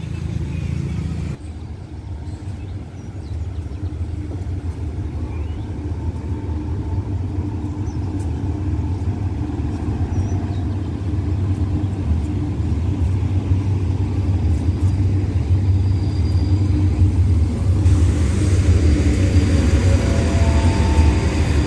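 GE diesel-electric locomotive approaching at the head of a passenger train, its engine rumble growing steadily louder. Wheel and rail noise rises near the end as the locomotive draws alongside.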